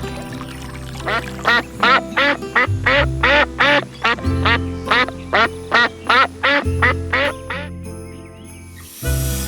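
A long, rapid run of short calls from an animal, about three a second, over background piano music; the calls stop shortly before a burst of hiss near the end.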